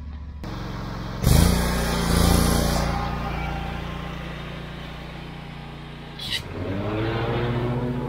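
Wright stand-on zero-turn mower's engine idling, then throttled up with a rising pitch about a second in and running as the mower drives off. A brief click comes about six seconds in, followed by another rise in engine speed.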